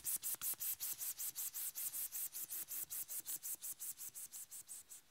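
A fast, even run of short hissing strokes, about seven a second, getting a little weaker toward the end and then stopping: a performed imitation of the sound of gossip.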